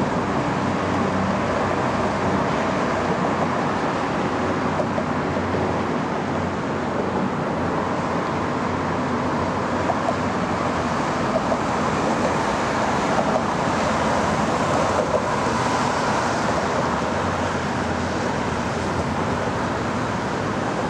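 Steady traffic noise: engines and tyres of a line of cars and police SUVs passing on a highway.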